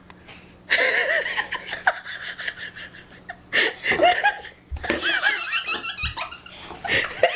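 A person laughing hard in repeated high-pitched bursts. The laughter breaks out about a second in, pauses briefly around the middle, then starts again.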